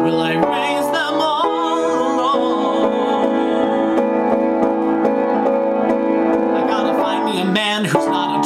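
Music: an instrumental passage of a pop song, sustained keyboard chords under a wavering melody line with vibrato.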